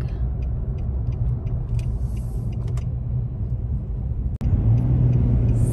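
Car cabin noise while driving on a highway: a steady low rumble of tyres and engine. About four seconds in it drops out for an instant and comes back louder, with a steady low hum.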